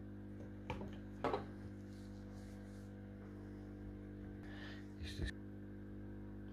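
Steady electrical hum with a few light handling clicks and taps as a small circuit board and soldering iron are picked up and set down. There are two sharp taps about a second in, the second the louder, and a brief scrape and knock around five seconds.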